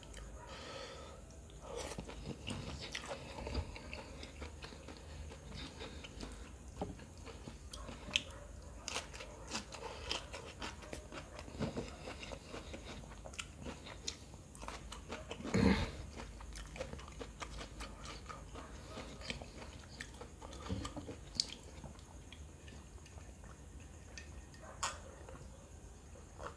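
Close-miked mouth sounds of a person eating noodles and green chilies: chewing, biting and wet smacking, with scattered small crunches and clicks and one louder crunch about halfway through.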